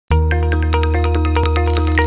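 Production-logo intro music: a held low bass note under quick plucked notes, about five a second, starting abruptly, with a hiss swelling up near the end.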